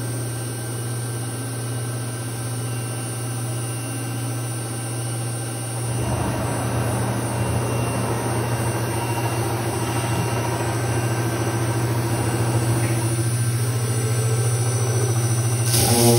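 CNC router with a spindle-mounted sanding disc running: a steady machine hum that grows louder and noisier about six seconds in as the machine gets to work. Near the end a short hiss as the sanding disc comes down onto the wood slab.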